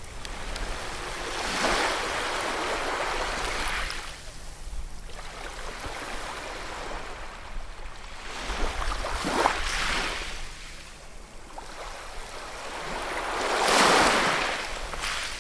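Ocean waves breaking and washing up on a shore, a rushing hiss that swells and recedes in three surges: one about two seconds in, a sharper one around nine seconds, and the loudest building slowly to a peak near the end.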